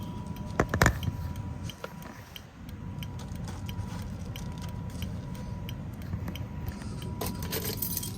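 Clicks and knocks of fire alarm equipment being handled, with a couple of louder knocks about a second in, then faint ticking about twice a second.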